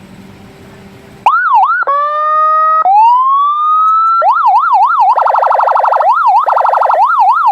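SENKEN electronic police siren sounding through its horn speaker, cycling through its tones. It cuts in suddenly about a second in with quick up-and-down sweeps and a short steady horn-like tone, then a rising wail. After that it switches between a fast yelp sweeping up and down about three times a second and a very rapid warble.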